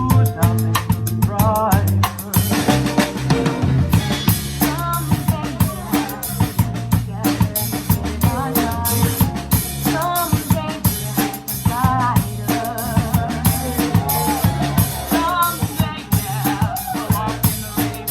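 Live band playing a seventies pop-rock song, the drum kit prominent with steady kick and snare hits and rimshots, over bass and a wavering melodic lead line.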